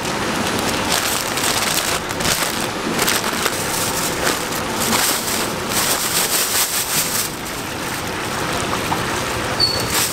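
White wrapping paper and a thin plastic carrier bag crinkling and rustling in irregular crackles as they are folded around a portion of fried chicken, over a steady hiss.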